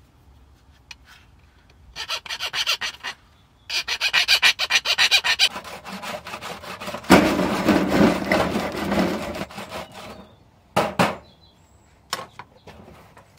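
Quick back-and-forth rasping strokes of a hand tool worked on the workbench, in two short bouts, then a longer, denser bout of scraping about seven seconds in, and a few short knocks near the end.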